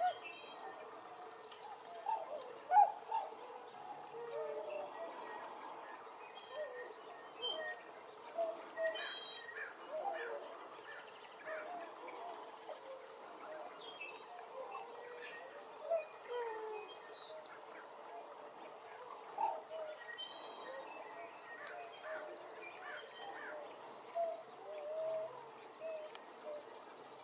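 A flock of swans calling on the water: many short, overlapping calls scattered throughout, one louder call about three seconds in.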